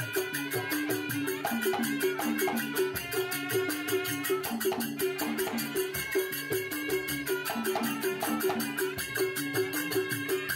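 Music with a fast, steady percussive beat and short repeating pitched notes, about four a second.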